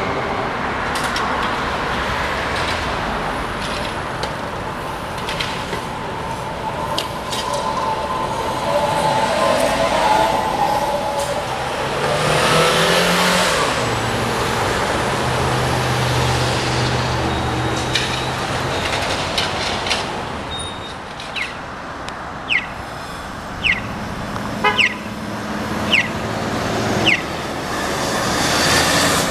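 Road traffic at a city intersection: cars and an electric trolleybus passing, loudest about halfway through. Near the end, half a dozen short high chirps come roughly once a second.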